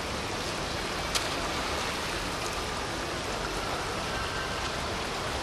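Steady hiss of rain, with one sharp click about a second in.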